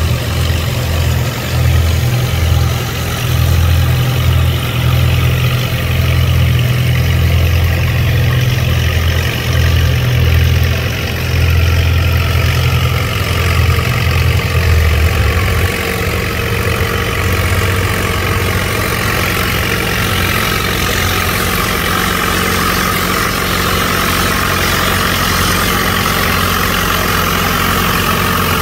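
Antique farm tractor engine running, with a heavy, uneven low chugging that eases to a lower, steadier run about sixteen seconds in. A rising whine comes in over the last several seconds.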